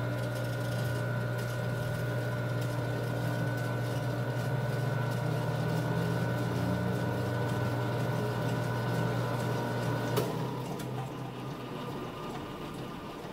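Electric motor of a glass lap wheel running steadily with a low hum and a thin high whine, spinning a plywood platform. About ten seconds in there is a click and the hum and whine stop, and the remaining sound fades as the wheel coasts down.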